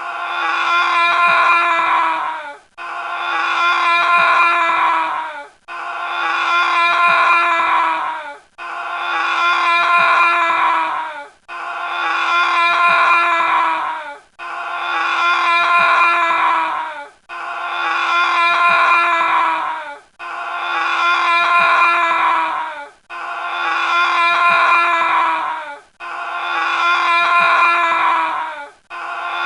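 An anguished, wailing cry played as a loop: the same sustained, pitched wail of about three seconds repeats about ten times with a brief break between each, sagging a little in pitch as each one ends.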